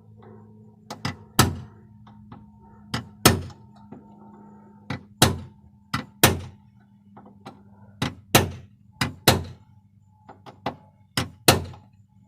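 Hammer blows on a rivet in a car door's sheet-metal panel, striking to drive the rivet out: about sixteen sharp metallic strikes, often in quick pairs, every second or two.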